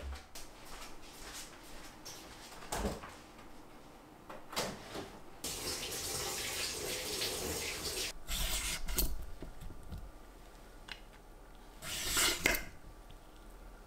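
Kitchen tap running into the sink for a few seconds, then a few clatters, and near the end a short scrape as a cucumber is pared into thin strips on a wooden cutting board.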